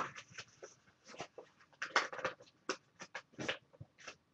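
A paper file folder being folded in half and creased by hand: a string of irregular crinkles and taps.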